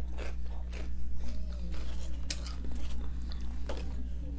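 Close-miked chewing of pizza topped with hot Cheetos, with several sharp crunches spread through the chewing. A steady low electrical hum runs underneath.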